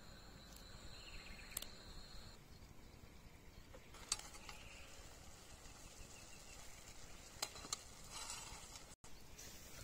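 A cricket trills steadily and high for the first couple of seconds, then stops. After that, faint outdoor quiet with a few sharp metallic clinks, the lid of a blackened metal kettle being handled, the last two close together about seven and a half seconds in.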